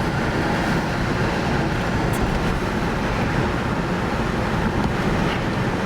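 Steady rumble and hiss of a car driving, heard from inside the cabin, with road and wind noise.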